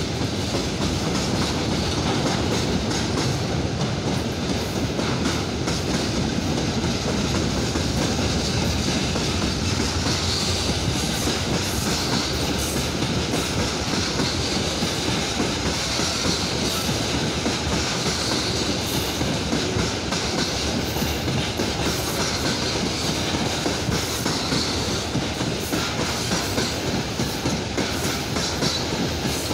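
Freight train's wagons, covered grain hoppers and tank cars, rolling past without stopping: a steady rumble with the wheels clattering over the rail joints.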